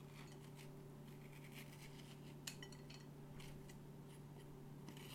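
Faint scraping and clicking of a metal spoon scooping the seeds and stringy pulp out of a halved acorn squash, several small scrapes spread across the few seconds, over a steady low hum.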